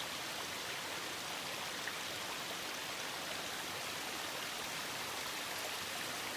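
Water running and splashing over rocks in a small stream, a steady rushing.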